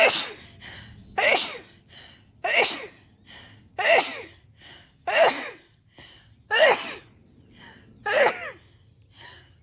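A woman sneezing over and over in a sneezing fit: seven loud sneezes one after another, about one every second and a half, each with a quick sharp breath in between.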